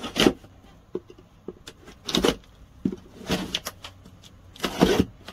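Knife slitting the packing tape along the seam of a cardboard box: four short tearing, scraping strokes, with a few light clicks between.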